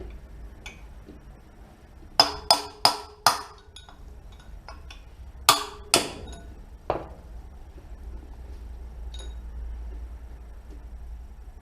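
Hammer blows on metal knocking out the second wheel bearing of a motorcycle wheel hub, each strike ringing briefly: four quick strikes about two seconds in, then two more and a lighter one a few seconds later.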